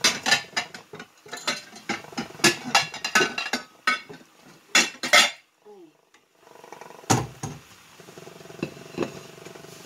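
Dishes and cutlery clattering in a kitchen: a rapid run of clinks and knocks for about five seconds, then a few single knocks later on.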